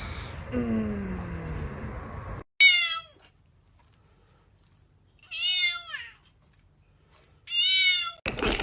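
A cat meowing three times, each a high call that rises and then falls, a couple of seconds apart.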